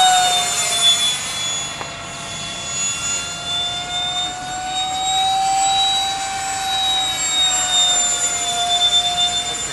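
Electric ducted fan of an RC F-35C model jet in flight, giving a steady high-pitched whine. The pitch drops early on, rises again around the middle and drops again near the end as the model passes and turns.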